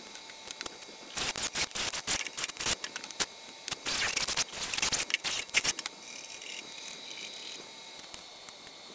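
Quick clicks and rattles of a cordless drill's keyless chuck being worked by hand as a bit is fitted, then quieter rustling of small plastic hardware bags near the end.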